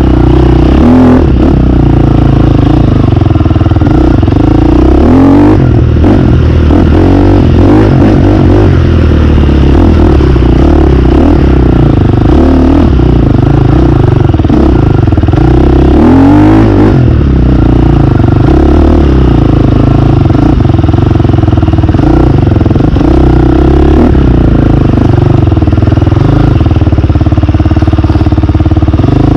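Dirt bike engine running hard on a wooded trail, its pitch rising and falling repeatedly as the throttle is worked over uneven ground.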